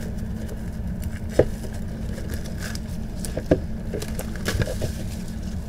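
Hands handling a plastic-wrapped Blu-ray steelbook case: a few sharp clicks and faint crinkles of the case and its wrapping, the loudest click about one and a half seconds in, over a steady low hum.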